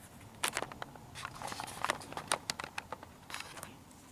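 Footsteps over a debris-strewn floor: an irregular run of crunches and scuffs, the loudest about half a second in.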